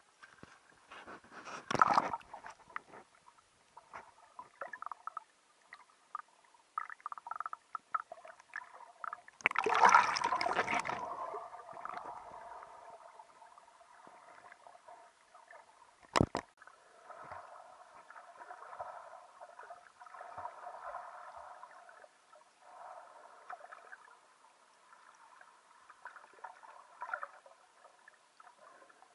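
Lake water sloshing and gurgling against a camera held at the waterline and dipped under. There are two louder splashes, about 2 and 10 seconds in, then a muffled, bubbly gurgle underwater, broken by a single sharp click a little past halfway.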